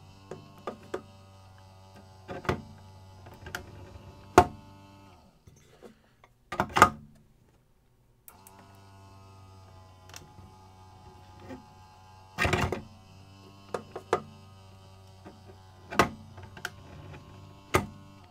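Small electric drive of a 3D-printed marker-buoy dropping mechanism humming steadily as it cycles. The hum stops for about three seconds around five seconds in. Many clicks of the plastic mechanism and a few loud knocks come from weighted marker buoys dropping out onto the tile floor.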